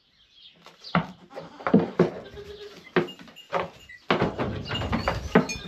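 Goat bleating while held for a hormone injection, mixed with knocks and handling noise; the handling noise turns into a low rumble about four seconds in.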